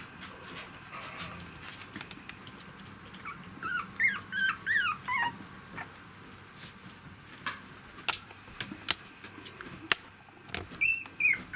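Three-week-old poodle puppies squeaking and whimpering in short, high calls that slide up and down. One cluster of calls comes about four to five seconds in and another near the end, with scattered light clicks in between.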